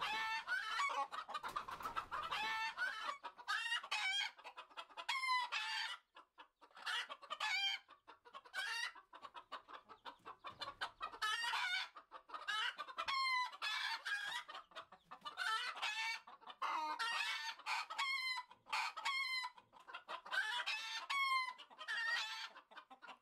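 A flock of chickens clucking and calling, many short overlapping calls with brief lulls.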